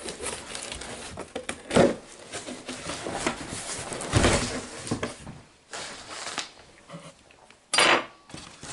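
A taped cardboard shipping box being handled and opened by hand: rustling and scraping with several sharp knocks, the loudest about two and four seconds in, and a short burst near the end.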